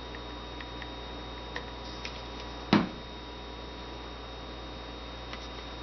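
Small handling ticks and one short knock about three seconds in, as a plastic oil bottle is handled and set down on a rubber work mat, over a steady low hum.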